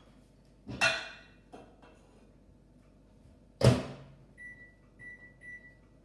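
Microwave oven being loaded and set: a knock with a short ring about a second in, the door shutting with a loud clunk partway through, then three short keypad beeps as the cooking time, 10 seconds, is keyed in.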